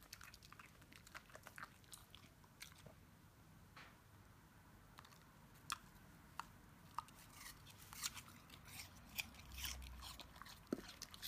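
Shiba Inu biting and crunching a slice of crisp Japanese pear (nashi). Faint, scattered sharp crunches that grow louder and more frequent in the second half.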